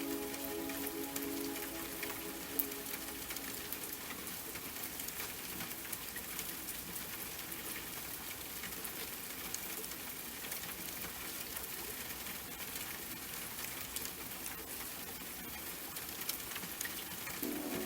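Steady rain falling, with many small drop ticks. A soft sustained music chord fades out in the first couple of seconds and comes back just before the end.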